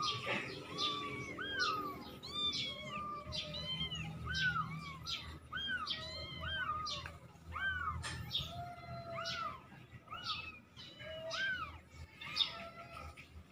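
Kittens mewing over and over: short high mews that rise and fall in pitch, about two or three a second, with a few lower mews among them.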